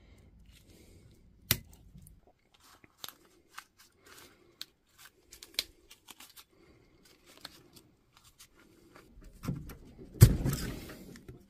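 Side cutters snipping the spot-welded nickel strips on a pack of 18650 lithium-ion cells, cutting out the faulty cell bank. One sharp snap comes about a second and a half in, then a run of small clicks and metal crinkling. Near the end there is a louder tearing crunch as the strips and the paper insulation are pulled away.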